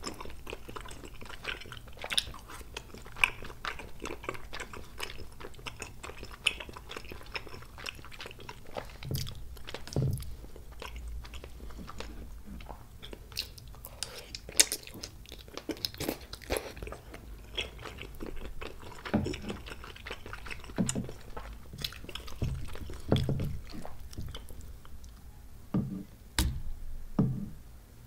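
Close-miked chewing of spicy tteokbokki, chewy rice cakes and fish cake in thick red sauce, with many short wet clicks and smacks and a few deeper thumps.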